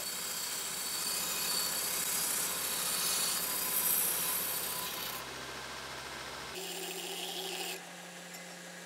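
A 2x72 belt grinder's 50-grit belt running at full speed over a 10-inch contact wheel, grinding 10-gauge steel with a steady rasping hiss. The 1.5-horsepower motor does not bog down under the load. About six and a half seconds in, the sound cuts to a quieter one with a steady hum underneath.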